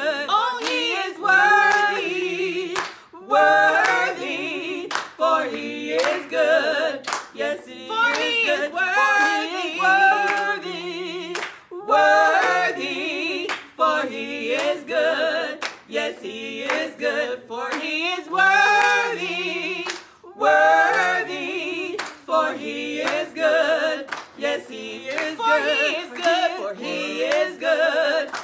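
Two women singing a gospel praise chorus a cappella, with hand claps on the beat.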